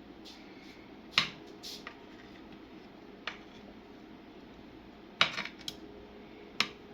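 A utensil clicking and knocking against a pan while chicken drumsticks are lined up in it: about five sharp knocks, the loudest about a second in and again at about five seconds.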